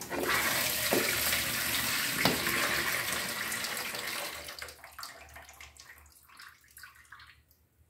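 Rinse water poured from a bowl past a plate held over its mouth, splashing into a stainless steel sink as it is drained off peaches. The pour runs strong for about four seconds, then thins to a trickle and stops.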